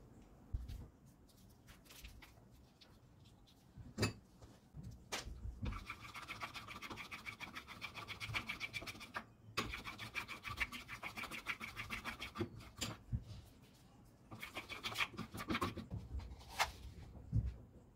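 Plastic spoon stirring a thick slime mixture of PVA glue and toothpaste in a glass bowl, scraping against the glass in fast, continuous strokes that stop and start a few times. A few single knocks fall between the stirring.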